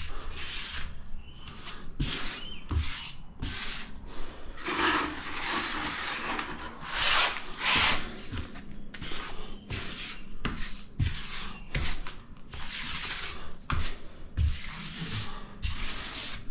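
Grout being worked over ceramic subway tiles with a rubber grout float, a run of irregular scraping and rubbing strokes with a few soft knocks.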